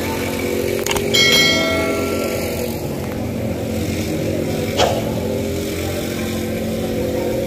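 Steady hum of street traffic and motorcycle engines. About a second in, a single bright metallic ring like a small bell fades out over a second or so, and a sharp click comes near five seconds.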